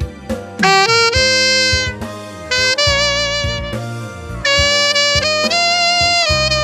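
Instrumental music: a solo melody instrument plays a slow tune in long held notes with vibrato, over a backing track with a bass line.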